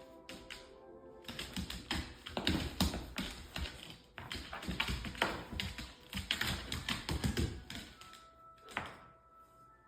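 Rapid, irregular tapping and clicking that thins out near the end, with faint music underneath.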